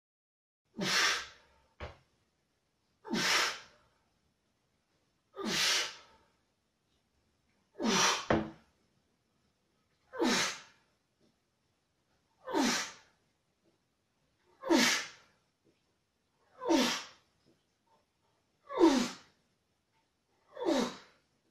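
A man breathing out hard through each dumbbell curl, ten short breaths about two seconds apart, each falling in pitch. A brief click comes just after the first breath.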